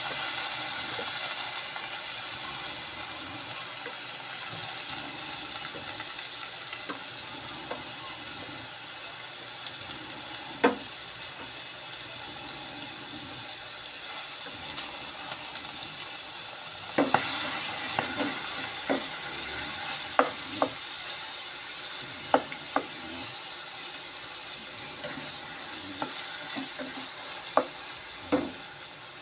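Pork cubes with garlic and onion sizzling steadily in a pot, with a wooden spatula stirring and clicking against the pot a few times, most often in the second half.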